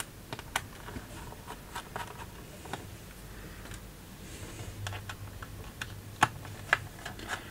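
Scattered light clicks and taps of hands handling a MacBook Pro's aluminium bottom case and tools on the bench, with one sharper click about six seconds in.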